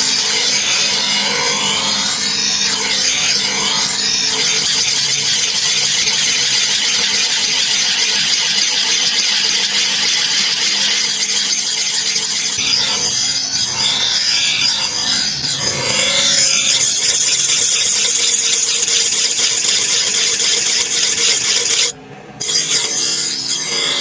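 Steel cleaver blade being worked with an abrasive: a continuous scraping rub of abrasive on metal, broken off briefly near the end.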